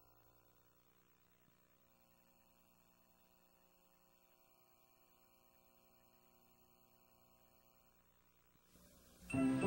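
Faint steady electrical hum, made of many steady tones, on a VHS tape transfer's soundtrack. Near the end, music starts abruptly and loudly.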